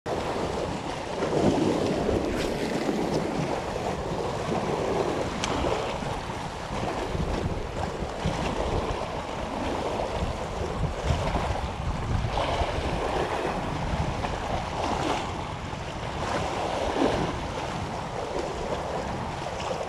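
Wind buffeting the microphone over the wash of sea water, swelling and easing every second or two.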